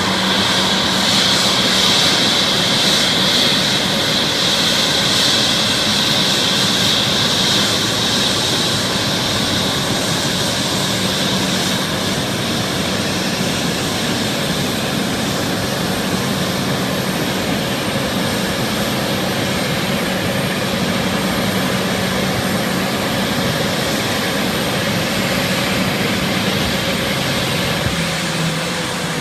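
Brazilian Air Force airplane's engines running loudly and steadily, with a high whine that is strong at first and fades after several seconds.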